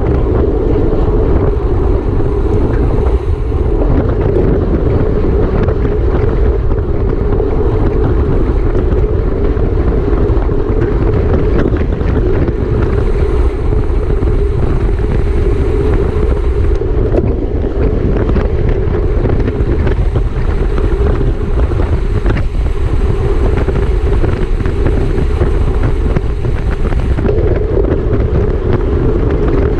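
Wind rushing over the microphone of a rider's onboard camera at bike-race speed: a loud, steady rush with a low buffeting rumble.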